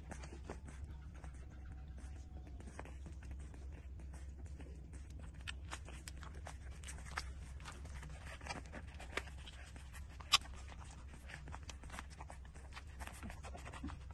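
18-day-old puppies suckling at their mother's teats: faint wet sucking and smacking clicks, with one sharper click about ten seconds in.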